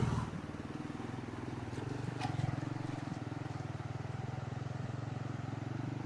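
Motorcycle engine running steadily while riding.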